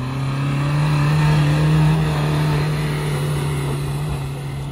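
Dacia Duster's engine revving hard under load as it drives up a steep dirt slope. Its pitch climbs in the first second, and it is loudest about two seconds in before easing slightly.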